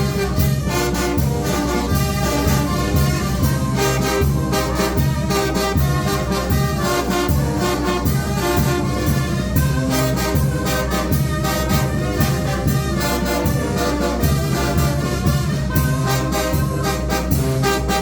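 Mexican banda de viento (brass band) playing: trumpets and trombones carry the melody over a steady rhythmic beat and bass.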